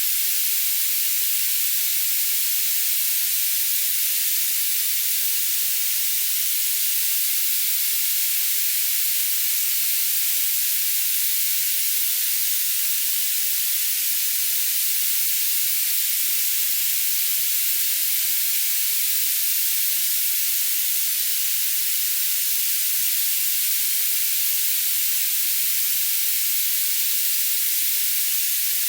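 Steady high-pitched hiss of high-pass-filtered noise, with nothing in the low end, played unchanging as a tinnitus-masking sound.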